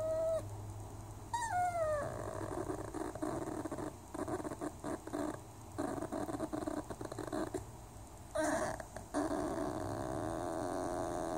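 Whippet vocalising with her mouth closed: a short falling whine, then rough, rumbling moans broken by short pauses, which settle into one steady moan from about nine seconds in.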